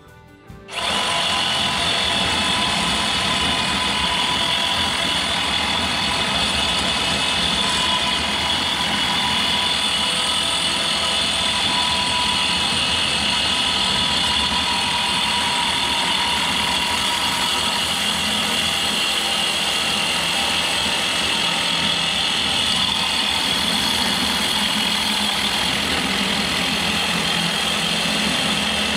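A motor-driven power tool or machine switches on about a second in and runs loud and steady, with a constant whine.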